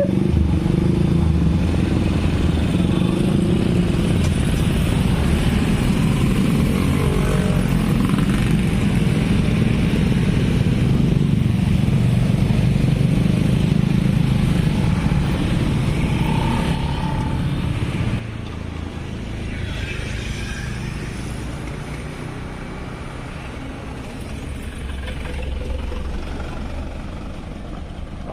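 Road traffic: motorcycle and car engines running as vehicles pass, a loud, steady rumble that drops suddenly to a quieter level about two-thirds of the way in.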